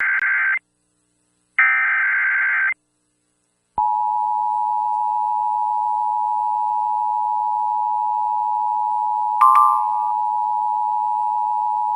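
Emergency Alert System broadcast: the end of the SAME digital header, two short buzzy data screeches a second apart, then from about four seconds in the steady two-tone EAS attention signal. A brief higher beep sounds over the tone about halfway through.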